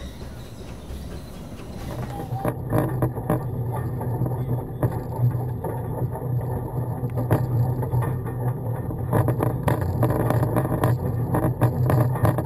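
Narrow-gauge quarry train on the move: a steady low hum with many irregular sharp clicks and knocks, starting about two and a half seconds in after a quieter opening.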